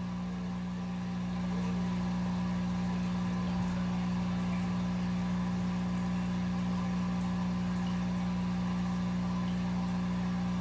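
Steady mechanical hum of running aquarium equipment in a fish room, with a strong low drone; it grows a little louder about a second and a half in.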